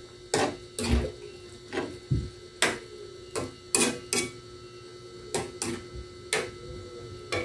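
A cooking utensil knocking and scraping against a metal wok while stew is stirred, about a dozen sharp clinks at uneven intervals. A faint steady hum runs underneath.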